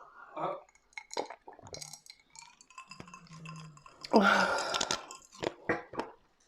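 Glass and tableware clinking and knocking in a scatter of small sharp sounds, with a louder noisy burst lasting about a second, about four seconds in.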